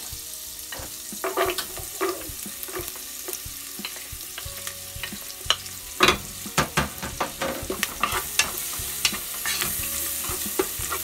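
Minced garlic sizzling in melted butter in a pot, with a wooden spoon knocking and scraping against the pot as it is stirred. The sharpest knocks come about six seconds and eight seconds in.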